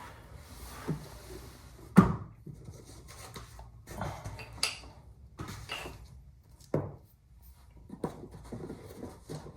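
Handling noise from rifle parts and tools being picked up and set down: scattered knocks, clicks and rubs, the loudest knock about two seconds in.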